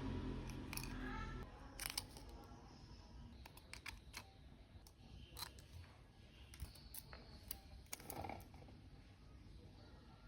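Faint small clicks and light scrapes of tools handling an Alexandre Christie wristwatch and its quartz movement during a battery change. A low hum runs under the first second or so, and the clicks thin out near the end.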